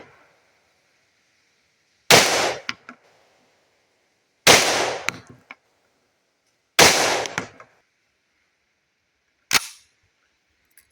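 Remington Sportsman 48 semi-automatic 12-gauge shotgun firing single shots, about two and a half seconds apart. Each loud report rings out briefly and is followed by a couple of small sharp clicks. Near the end comes a shorter, sharper report.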